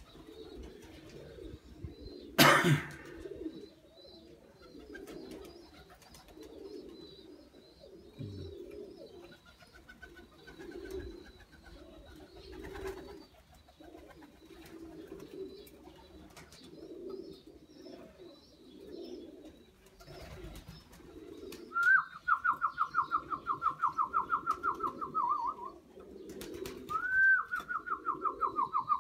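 Domestic pigeons cooing over and over, about one phrase a second. A sharp sound stands out about two seconds in, and near the end there are two rapid, warbling trilled whistles, each a few seconds long and sliding slightly down in pitch.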